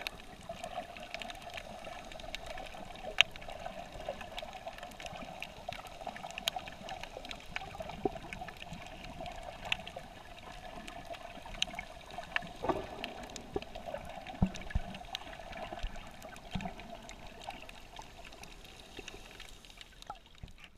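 Shallow seawater heard underwater: a steady muffled wash with a constant hum-like band, dotted all through with scattered sharp clicks and crackles.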